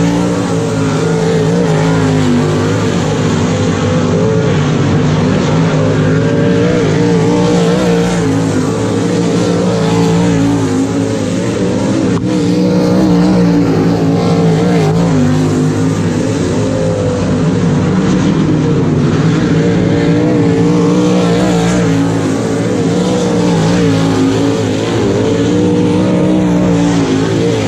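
Winged dirt-track sprint car engines running hard around the oval. The sound is loud and steady, with the engine pitch rising and falling as the cars lap.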